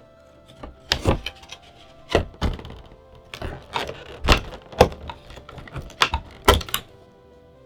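Packaging of a Pokémon trading card premium collection box being opened and handled: a string of sharp taps and knocks with short scuffing between them over about six seconds, the loudest near the end. Faint steady background music runs underneath.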